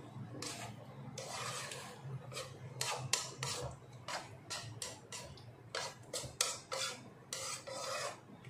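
Plastic slotted spatula scraping and tossing diced vegetables and beans around a nonstick wok, in quick repeated strokes about two to three a second.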